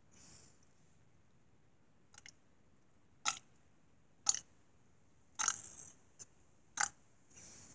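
Mouth noises close to the microphone: about six short, sharp lip smacks and tongue clicks at irregular intervals, one about two-thirds of the way in a little longer than the rest.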